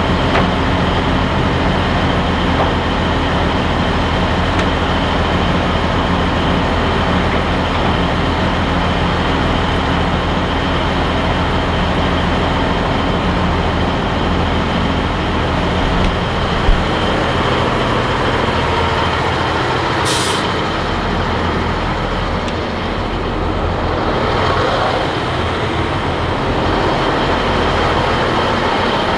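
Peterbilt 362 cabover truck's diesel engine running steadily with road noise, with one brief knock partway through and a short hiss of air about twenty seconds in.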